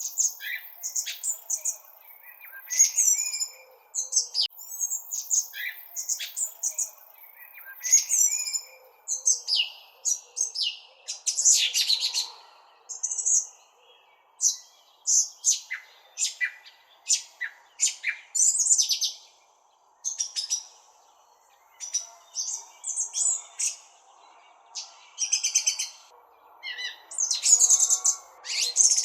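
Birds chirping: quick, irregular runs of short high chirps that keep coming, over a faint steady background noise.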